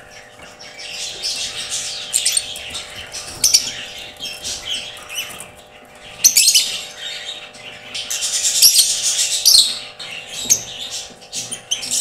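Lovebirds, a Fischer's lovebird among them, chirping in quick high-pitched bursts, loudest about six seconds in and again around nine seconds, over a faint steady hum.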